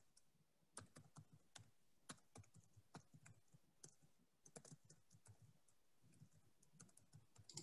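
Faint typing on a computer keyboard: irregular runs of key clicks starting about a second in, as contact details are typed into a chat box.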